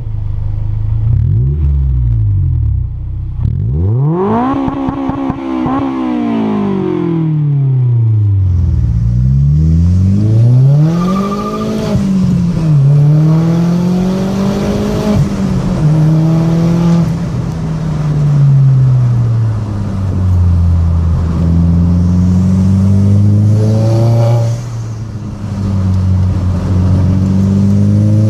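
A Honda S2000 with a J's Racing 70RS dual exhaust revving in quick blips, the pitch sweeping up and falling back. Partway through it gives way to a Seat Leon Cupra 180's turbocharged 1.8-litre four-cylinder heard from inside the cabin while driving, its pitch climbing and dropping back at each gear change.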